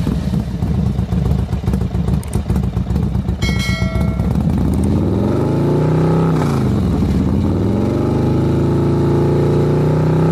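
Motorcycle engine running with a rough, choppy note, then its pitch drops and climbs back before holding steady. A brief chime sounds about three and a half seconds in.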